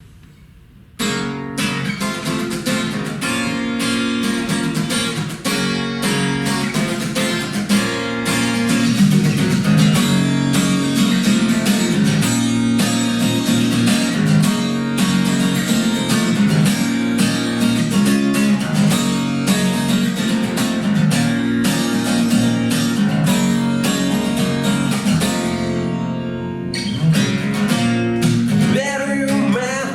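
Song music led by strummed acoustic guitar, starting about a second in.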